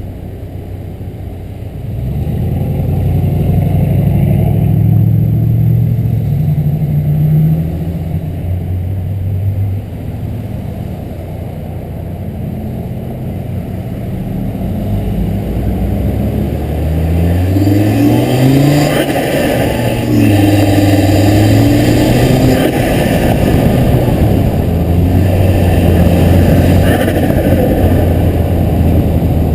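Volvo S60R's turbocharged 2.5-litre five-cylinder engine pulling hard under load, its pitch climbing steadily a little past halfway. The diverter valve line is disconnected, so excess boost is not vented and the turbo flutters as compressor surge when the throttle is lifted.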